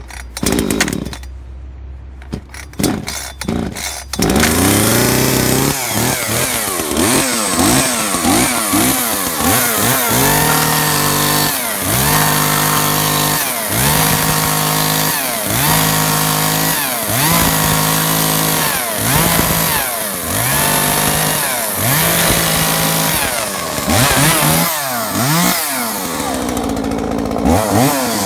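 Kioritz CSV3200 34cc two-stroke chainsaw being pull-started: a few sharp pulls of the starter cord, then the engine catches about four seconds in. It is then revved up and dropped back again and again, every second or two, as it makes short cuts into wooden pallet slats.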